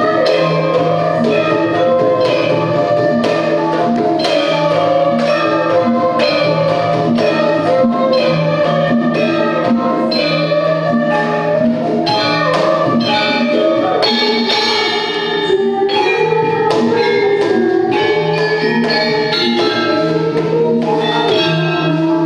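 Javanese gamelan playing in jaipong style: bronze metallophones and gong-chimes ringing in a steady rhythm, driven by lively kendang hand-drum patterns. In the second half a female singer's voice comes in over the ensemble through a microphone.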